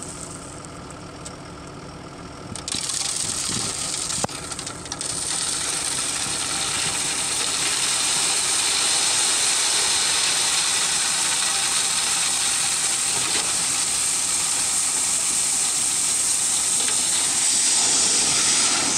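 Tipper semi-trailer unloading: a steady hissing rush of the load sliding and pouring out of the raised bed over the truck's running engine, stepping up about three seconds in and growing louder later on, with a single sharp knock about four seconds in.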